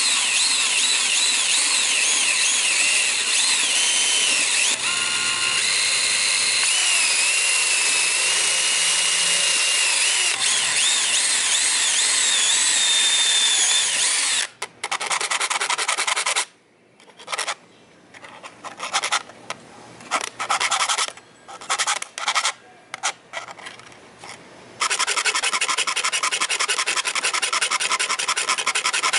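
A DeWalt cordless drill bores through thin brass, the bit squealing with a pitch that wavers, for about the first half. It is then run in a string of short bursts with pauses between. Near the end a steady rasping of a needle file on the brass takes over.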